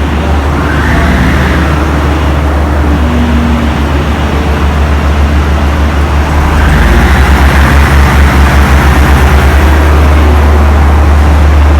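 Passenger train running, heard as a heavy low rumble with rough noise over it. About halfway through it grows louder and takes on a fast throbbing, about four beats a second.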